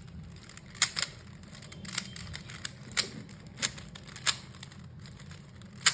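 Plastic 3x3 magnetic speed cube being turned to test corner cutting: its layers snap into place with sharp clacks, about eight of them at uneven intervals.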